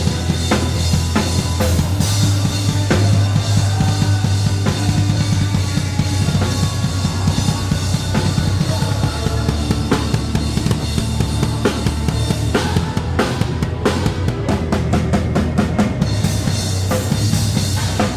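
Drum kit played along with a band, kick, snare and cymbals over a steady bass line. About thirteen seconds in the cymbals drop out for a few seconds, leaving a run of evenly spaced single hits, then the full groove comes back.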